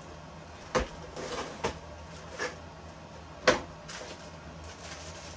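Cardboard box being handled as a boxed Lionel boxcar is drawn out of it: a handful of short knocks and scuffs, the loudest about three and a half seconds in.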